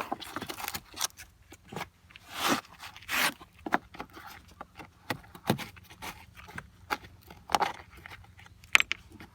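Scattered clicks, knocks and scrapes of parts and tools being handled while working on a scooter, with two short rasping swishes about two and a half and three seconds in.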